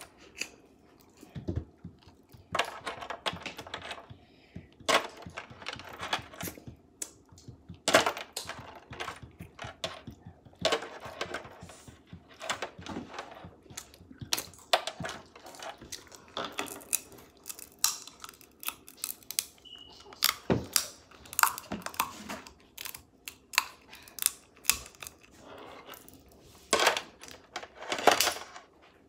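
Crab cluster shells being cracked and snapped apart by hand and the meat picked out and eaten: irregular sharp cracks and clicks throughout, with eating sounds in between.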